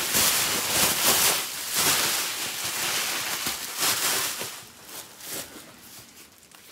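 Bubble wrap being gathered up and handled: a loud crinkling rustle full of small crackles that dies down after about four and a half seconds to a few scattered crackles.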